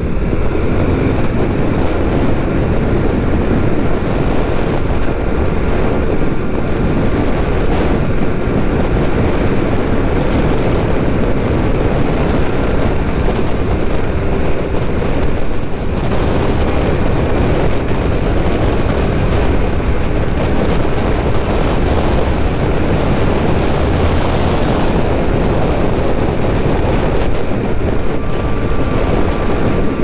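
Motorcycle riding at road speed, its engine running steadily under heavy wind rushing over the microphone.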